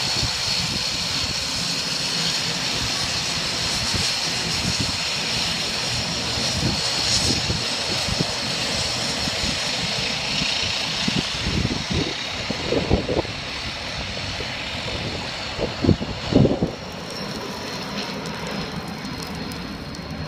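A Flybe airliner's engines running on the runway: steady engine noise with a high whine. A few low thumps come through in the second half, and the sound eases slightly near the end.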